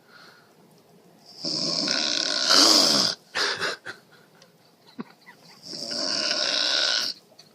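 A woman snoring loudly: two long snores about four seconds apart, the first ending in a louder stretch that falls in pitch.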